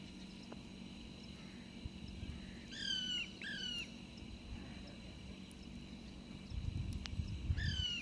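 Rose-ringed parakeets calling: two short squawks falling in pitch, about half a second apart, around three seconds in, and another near the end.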